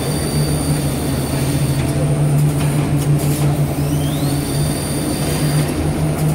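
Vertical packing machine running while it forms film bags and fills them with powder: a steady low hum with a thin high whine, a few clicks, and a whine that rises about three and a half seconds in.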